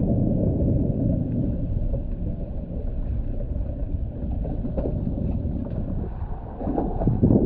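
Steady low rumble of wind buffeting the camera's microphone on a moving boat at sea, with a brief louder burst about seven seconds in.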